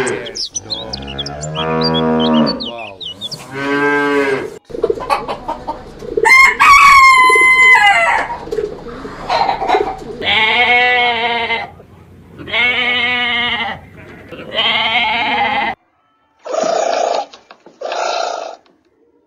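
Cattle mooing, then a rooster crowing several times, followed near the end by two short animal calls.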